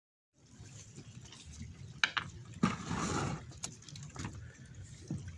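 Sea water splashing and fizzing against the jetty, with a few sharp clicks and a louder splash about two and a half seconds in, over a low steady rumble.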